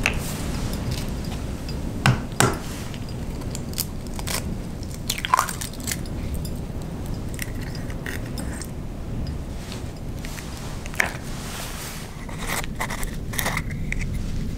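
Eggshells cracked and pulled apart by hand over a frying pan: a scattering of sharp cracks and crunches. Underneath, a steady low rumble of hurricane wind against the hut.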